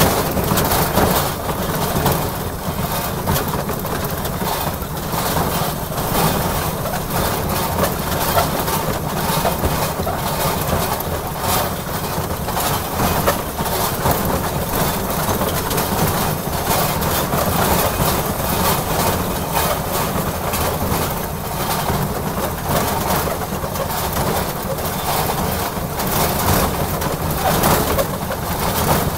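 Ride-on backyard railroad locomotive running along its track: a steady mix of engine and running-gear noise.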